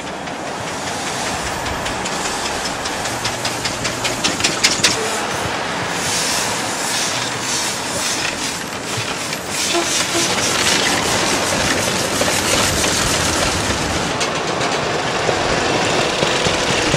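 Veteran steam car passing close by. Its engine's exhaust gives quick, even chuffs, and escaping steam hisses, loudest in the middle of the pass.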